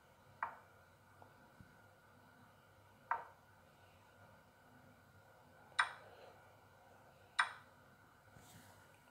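Chess app's piece-move sound effect: four short clicks a few seconds apart, one for each move as the game review steps forward. The last two, both captures, are sharper and brighter.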